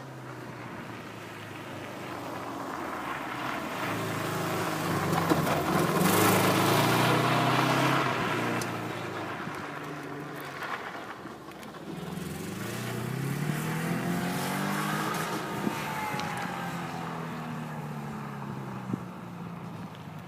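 Rally car running hard at speed. Its engine note grows louder to a peak about six to eight seconds in as it passes, then rises in pitch again as it accelerates, and fades away toward the end.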